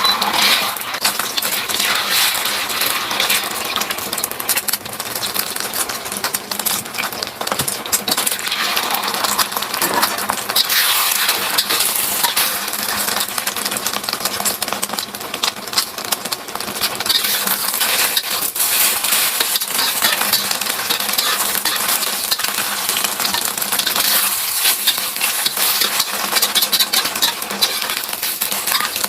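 Cooking sounds: a metal utensil clinking and scraping against cookware over a steady sizzling hiss, with many small clicks throughout.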